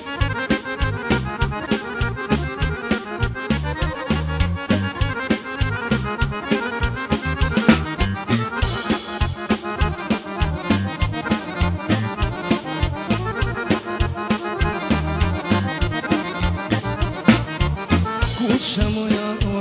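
Instrumental intro of a Serbian folk song: a Dallapè chromatic button accordion leads the melody over keyboards and electric guitar, with a steady beat of about three strokes a second.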